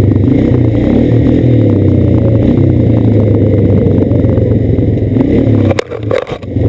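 Quad (ATV) engine running steadily under throttle as it climbs a trail. Near the end the engine sound drops off sharply, with a few knocks.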